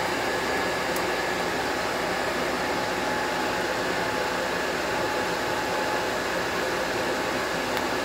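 Steady whir of a running fan, with a faint high whine in it.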